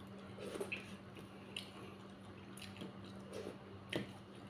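Quiet, wet eating sounds: a few soft smacks and squelches of someone eating sticky dhedo porridge, spaced irregularly, the clearest about four seconds in, over a faint steady hum.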